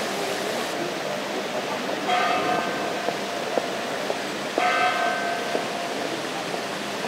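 Church bell tolling in slow single strokes about two and a half seconds apart, each stroke ringing on and fading.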